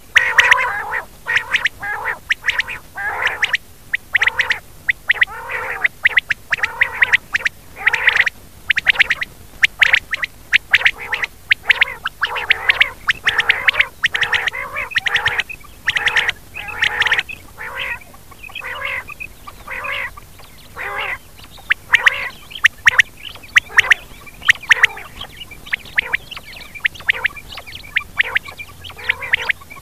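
Rain quail calling: short, repeated calls coming several a second, irregular and overlapping, as from more than one bird. This is a recording of the call used as a lure for netting quail at night.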